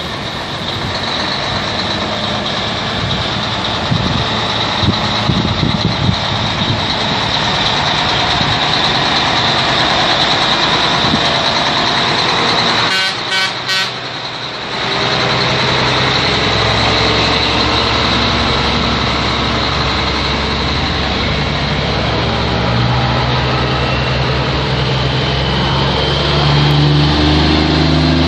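Heavy diesel truck engines running as big trucks drive slowly past at close range. There is a short run of rapid pulses about halfway through, and after it a deep engine drone builds, loudest near the end as a semi tractor pulls up close.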